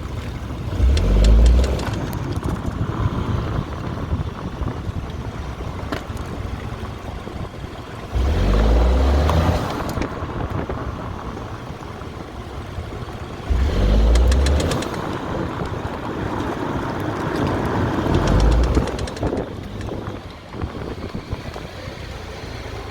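Vauxhall Astra K 1.4 turbo petrol car accelerating in four bursts, engine pitch rising each time, each followed by a run of rapid clicks from the drivetrain while cornering and accelerating. The owner points to a worn driveshaft CV joint.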